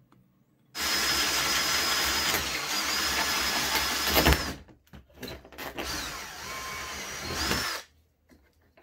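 Cordless drill driving a hole saw through a tinted plastic enclosure panel. It cuts in two runs: a long steady run with a high motor whine, a short break with a few knocks, then a second, quieter run that stops near the end.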